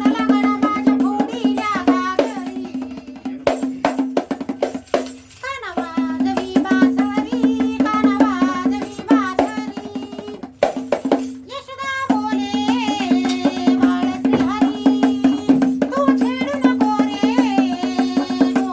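Waghya devotional folk song: a woman singing over a steady drone note, with rattling percussion struck throughout. The singing and drone break off briefly twice, about five seconds in and again around the tenth to twelfth second.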